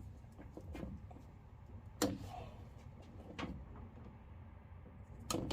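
A few sharp knocks and clicks of handling: a loud one about two seconds in, a softer one a little later and another loud one near the end, over a low steady rumble.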